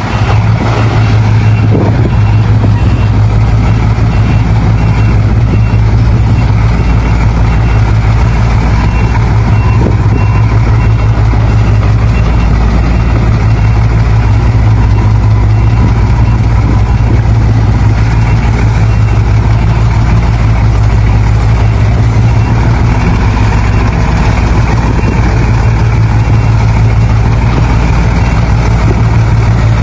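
Heavy diesel engines of construction machinery, a dump truck and an excavator, running steadily with a strong low hum.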